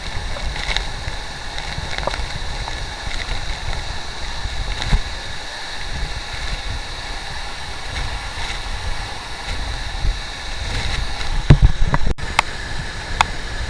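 Steady rush of flowing water, with gusty low rumble of wind on the microphone and a few short knocks, the loudest cluster near the end.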